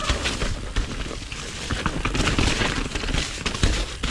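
Downhill mountain bike running fast over a rough dirt and rock trail: tyres on the ground, with a constant rattle of knocks and clicks from the bike, over a heavy rumble of wind on the microphone.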